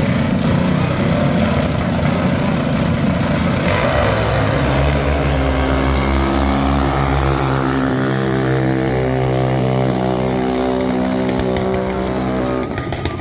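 A junior dragster's small engine at full throttle: a sudden rise in noise about four seconds in, then a steady high-pitched buzz that fades out near the end.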